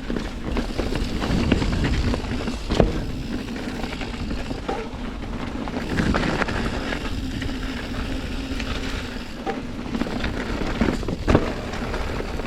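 Santa Cruz Hightower LT C mountain bike ridden along a dirt trail: steady tyre and drivetrain rattle over a low rumble of wind on the microphone, with a few sharp knocks from the bike hitting bumps.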